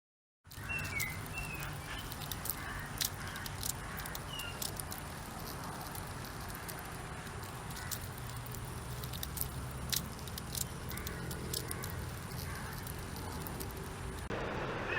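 Outdoor ambience: a steady low rumble with scattered sharp clicks, and a few faint short chirps in the first few seconds, after half a second of silence at the start.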